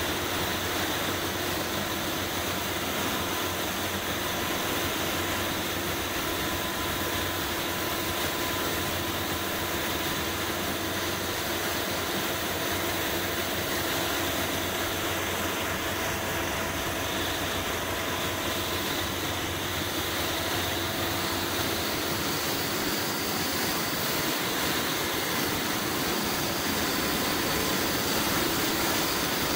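Steady hiss of compressed air from a gravity-feed paint spray gun spraying paint, over a constant low machine hum.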